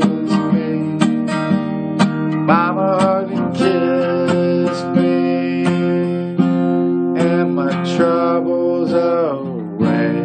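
Acoustic guitar strummed steadily in a closing instrumental passage of a slow folk song, with no singing.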